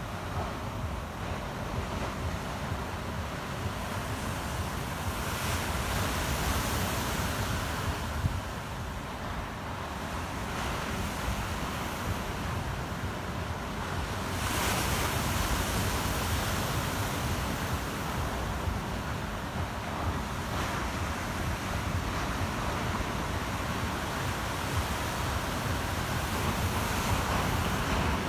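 Ocean surf: waves breaking and washing in as a continuous hiss that swells every several seconds, loudest about halfway through, over a low rumble of wind on the microphone.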